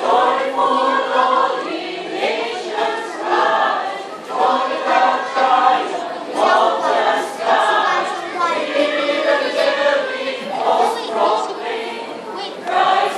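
Mixed choir of men's and women's voices singing together in short phrases.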